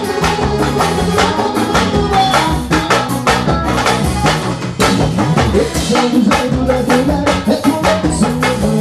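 Live band music played loud: a drum kit keeps a steady beat under electric guitar.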